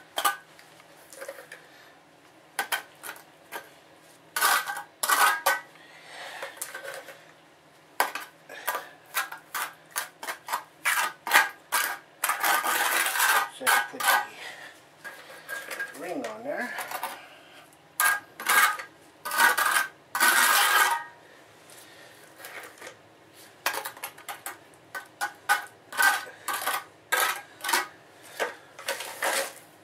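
A hand trowel scraping and clinking against wet mortar and concrete as mortar is spread and packed around a drain hole in a concrete floor: a run of short irregular scrapes, with longer, louder scrapes about halfway through and again a little later.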